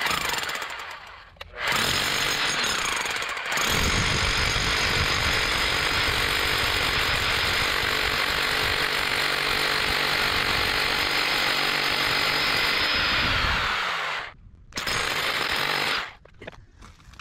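SDS Max rotary hammer drill with a half-inch carbide-tipped bit hammering holes into the concrete pool shell for the crack-repair staple studs. A short burst, then a steady run of about twelve seconds, a stop, and one more short burst near the end.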